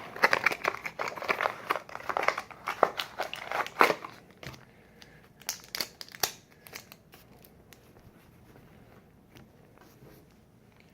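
Product packaging being opened by hand: dense crinkling and tearing for about four seconds, then a few scattered clicks and rustles.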